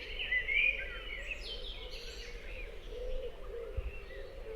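Several wild birds singing and chirping together, busiest in the first second or so, with a low note repeated over and over underneath.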